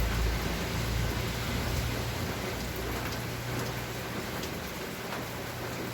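Steady rain falling, with scattered drop ticks through an even hiss. A low rumble under it fades out over the first couple of seconds.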